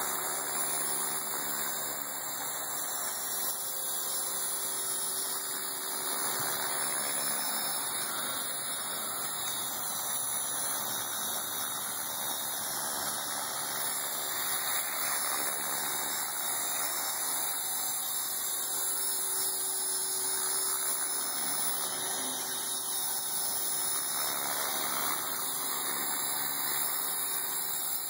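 Align T-REX 450 Sport electric RC helicopter hovering, a steady whine of its electric motor and spinning rotor blades.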